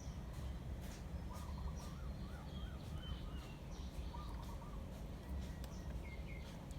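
Faint bird calls: a quick warbling call twice, with a few thin, higher chirps, over a steady low hum.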